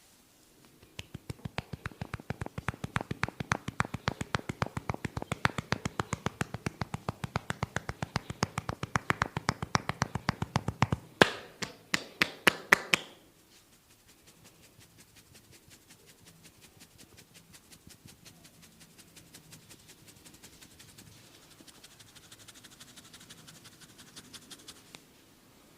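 A massager's hands tapping rhythmically on the head during a massage, several strikes a second. A handful of louder, sharper slaps come about halfway through, then the patting turns much softer and stops shortly before the end.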